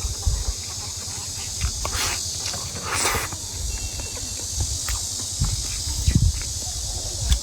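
Close-miked eating sounds: chewing and wet mouth noises, irregular, with a few louder bursts about two and three seconds in.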